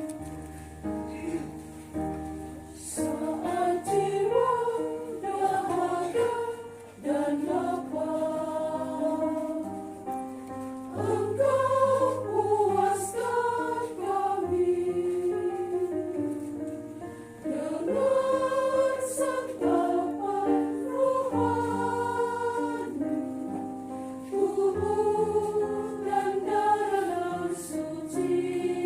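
Mixed church choir singing a hymn in parts, with sustained low bass notes held underneath and changing every few seconds.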